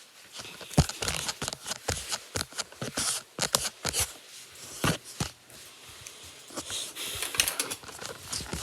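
A knife cutting and scraping into a bar of soap: a quick, irregular run of crisp scrapes and clicks.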